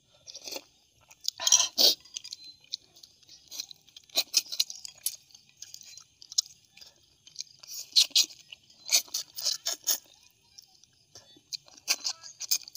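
A person eating boiled armored catfish close to a clip-on microphone: a sip from a spoon, then chewing and picking at the fish, heard as irregular wet smacks and clicks.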